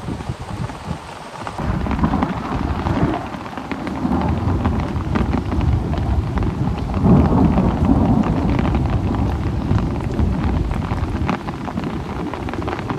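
Heavy rain falling steadily, with many close drop hits, and a long roll of thunder that builds from about two seconds in, is loudest around the middle and fades out near the end.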